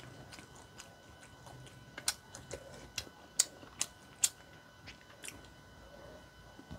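Sharp, wet mouth clicks of chewing close to the microphone: a run of short ticks, about two a second, starting about two seconds in.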